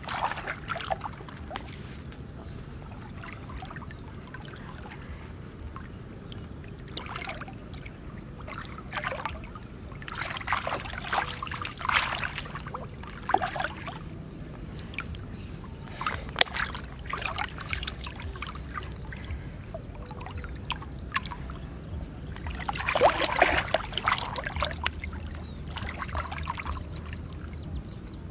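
Hands splashing and sloshing in shallow muddy water while groping for fish, in irregular bursts, the loudest a little before the end.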